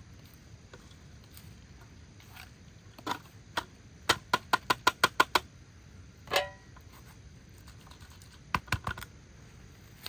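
A quick run of sharp taps, about five a second, then a few scattered taps near the end.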